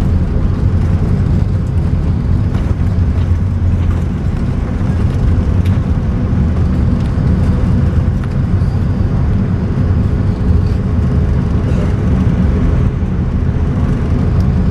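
Cabin noise of an Airbus A330-300 taxiing after landing, heard from a seat beside the wing: a steady low rumble from its Rolls-Royce Trent 700 engines at idle and the airframe rolling, with a faint steady hum above it.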